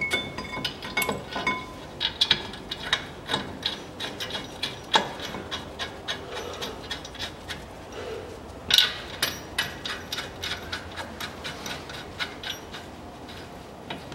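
Many short metal clicks and clinks as a steel brake caliper bracket is handled and seated against the front steering knuckle, a few with a brief metallic ring, and a sharper knock about nine seconds in.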